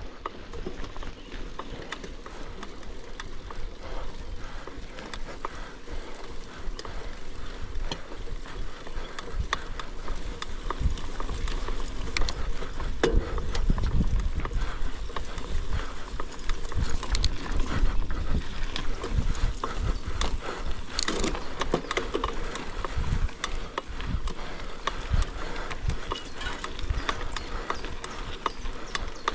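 Mountain bike ridden over rough trail: a continuous rattle of many small knocks and clatters from the bike and tyres on rough ground, with a low rumble, growing louder in the middle.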